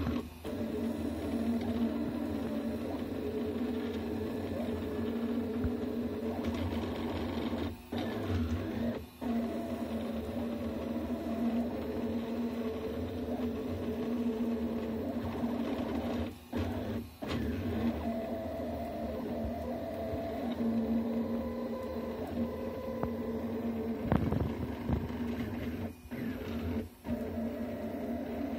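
Delta 3D printer's stepper motors whining in shifting tones as the print head moves while printing, over a steady hiss. The sound drops away briefly several times.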